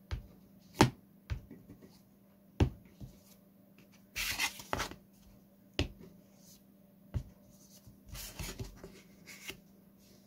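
Scattered light taps and knocks as a covering iron and a covered model-aircraft rudder are handled on a plastic cutting mat, the loudest about a second in. Short rustles come about four seconds in and again near eight seconds.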